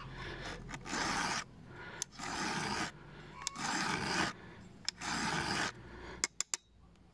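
Round chainsaw file pushed across a saw-chain cutter tooth in four slow, even rasping strokes to sharpen it. Three quick light clicks follow near the end.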